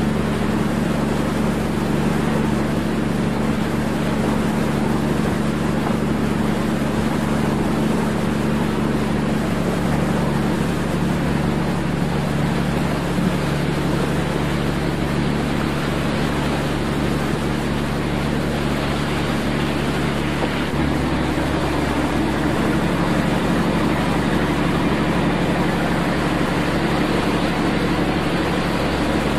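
Steady drone of a training ship's engines and machinery heard on deck: a constant low hum under a broad rushing noise that holds level throughout.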